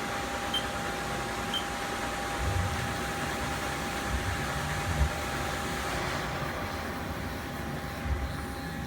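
Haas SL20T CNC lathe running, a steady machine hum with a constant high whine, and a few dull low bumps.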